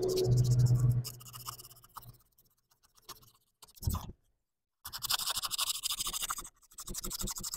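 Sandpaper rubbed quickly back and forth around a steel pump shaft, in two spells of scratchy strokes in the second half, cleaning the shaft up so the coupling will slide on. A brief low hum at the start and a single knock about four seconds in.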